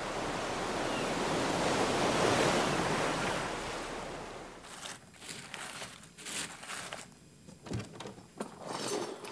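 Ocean surf sound effect: a wave swells up and washes out over the first few seconds. After that come a run of small knocks and rustles.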